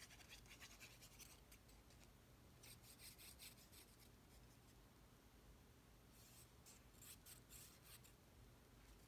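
Faint scratching of a fine-tip liquid glue bottle's nozzle drawn across cardstock as glue is laid along a paper frame, in several short runs of quick strokes.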